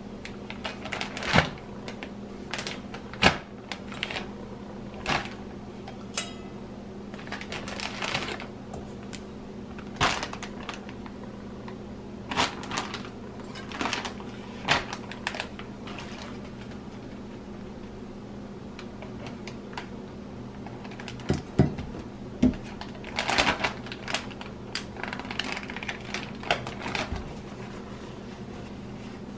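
Plastic zip-top bag rustling and crinkling as marinated quail are handled into it, with irregular sharp clicks and knocks scattered through. A faint steady hum runs underneath.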